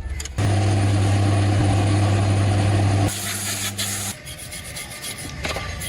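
A machine running with a loud, steady low hum that starts abruptly about half a second in and breaks off about three seconds in, followed by a quieter hum with hiss and then scattered clicking and clatter.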